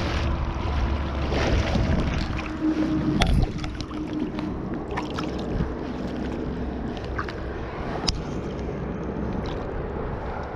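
River water splashing and sloshing as a trout is scooped into a landing net and handled in the shallows, over the steady rush of the current. It is heavier and lower in the first few seconds, with a couple of sharp clicks later.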